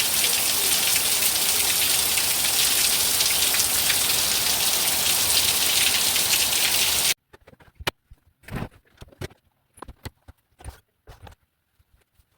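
Heavy rain falling steadily in a dense, even hiss. It cuts off suddenly about seven seconds in, leaving a few scattered light knocks and clicks.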